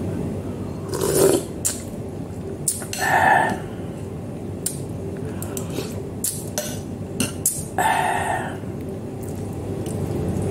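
Someone eating noodle soup: three loud slurps of broth from a spoon, with sharp clicks of the metal spoon and fork against the bowl in between. A steady hum runs underneath.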